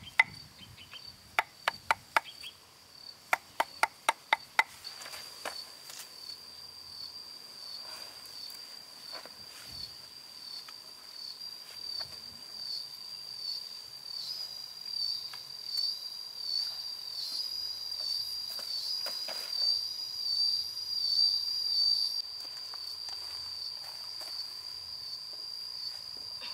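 About ten sharp knocks in the first five seconds as a chisel is struck into a log to cut a joint. Behind and after them, insects chirr steadily with a high drone that pulses and grows louder in the second half.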